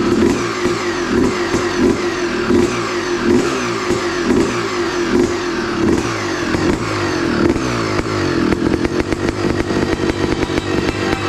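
Yamaha YZ250's two-stroke single-cylinder engine running on the stand, its throttle blipped over and over with the revs falling away after each blip. About three quarters of the way through it settles into a steadier, busier run.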